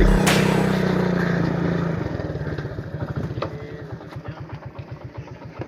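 Small motorcycle engine running, its steady low hum breaking about two seconds in into quick, evenly spaced firing pulses as it slows and drops back toward idle.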